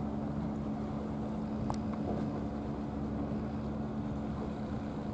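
A steady low mechanical drone holding a few even pitches, with wind rumble on the microphone and a faint click a little under two seconds in.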